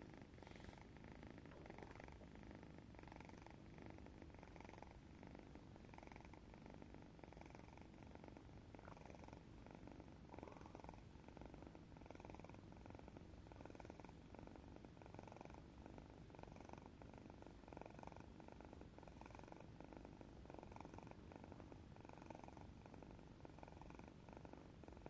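Cat snoring faintly, a steady even rhythm of breaths.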